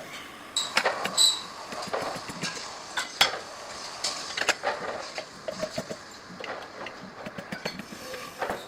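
Irregular metallic clinks and knocks of metal pieces being handled and struck, one ringing briefly about a second in.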